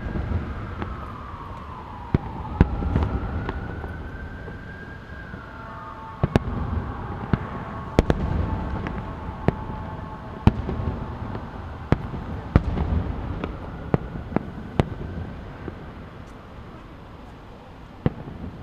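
Aerial fireworks shells bursting: a string of sharp bangs about every second, with low rumbling between them, thinning out near the end. A siren wails underneath, its pitch slowly falling and rising.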